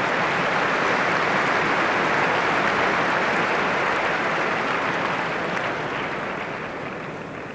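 Tennis crowd applauding a point: dense clapping that holds steady, then dies away over the last couple of seconds.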